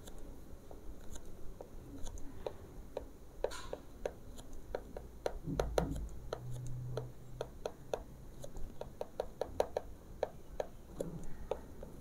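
Stylus tapping and scratching on a tablet screen during handwriting: a run of irregular light clicks.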